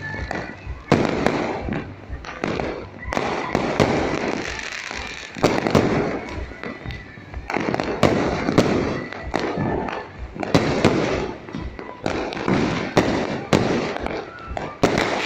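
Firecrackers and fireworks going off in a rapid, uneven string of sharp bangs, with crackling between them.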